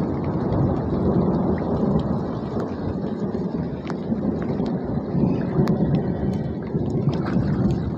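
Rain falling on standing floodwater in a field: a steady rushing noise with scattered sharp drop ticks.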